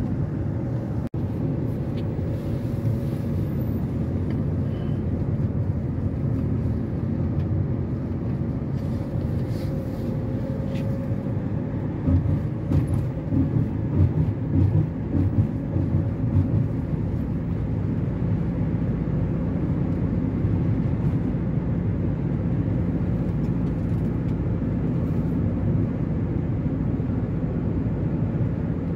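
Steady low rumble of a car's engine and tyres heard from inside the cabin while driving, turning heavier and more uneven for a few seconds around the middle.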